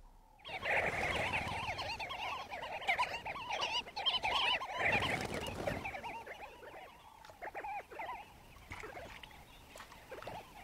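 A flock of sandgrouse calling: many overlapping short chattering calls, loudest in the first half and thinning out toward the end.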